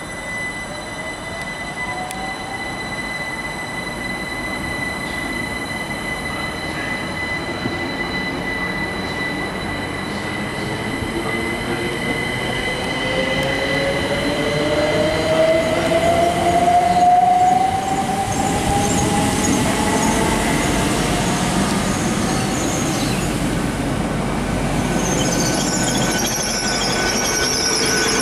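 A GWR multiple-unit train pulls away from the platform with a steady electric whine, then a rising whine as it accelerates. Near the end, a GWR Class 800/802 Intercity Express Train draws in, its brakes squealing high.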